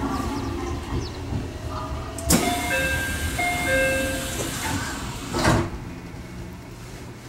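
An Aichi Loop Railway local train running along the track, heard from the cab. About two seconds in, a louder rushing noise starts abruptly and cuts off a few seconds later. During it, an electronic warning alternates between two pitches about twice a second.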